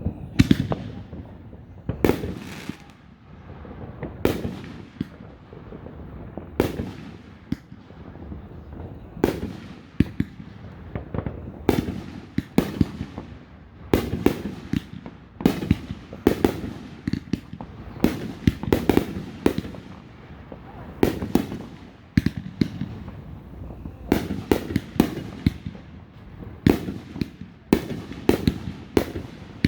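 Aerial fireworks exploding in a steady barrage: sharp bangs about one or two a second, each followed by a short echoing rumble.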